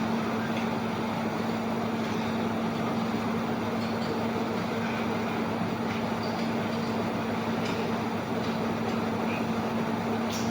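Cabin sound of a Scania K230UB single-deck bus with its five-cylinder diesel engine, running at a steady, unchanging pitch: a constant hum over an even rumble, with a few faint clicks near the end.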